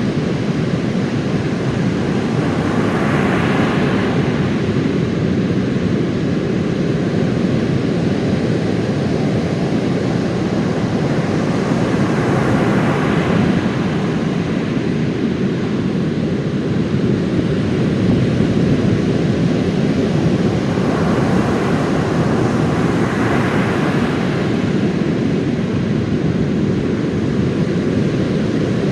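Heavy storm surf after a typhoon: a constant low roar of big waves breaking, with the hiss of a breaker swelling up three times, the last one longest.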